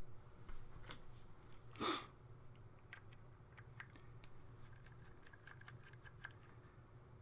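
Small clicks and rattles of plastic and aluminium LED-bulb parts being handled on a workbench, with one louder scraping rustle about two seconds in. A low steady hum runs underneath.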